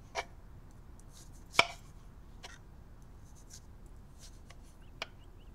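Kitchen knife chopping food on a cutting board: a few separate, irregularly spaced knocks, the loudest about a second and a half in.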